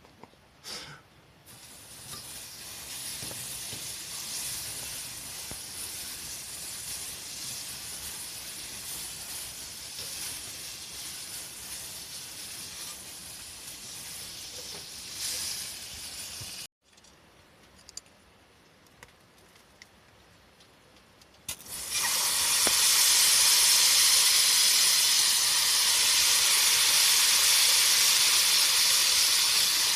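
A steady hiss in two stretches. The first is moderate, breaks off sharply about halfway through, and after a few quieter seconds the hiss returns much louder.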